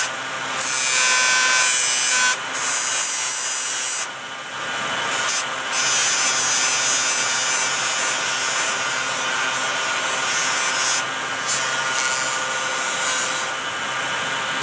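Bench buffing wheel spinning with a small steel hand-plane part pressed against it: a loud hissing rub over a steady motor hum. The rub drops away briefly several times as the part is lifted off and turned, then comes back.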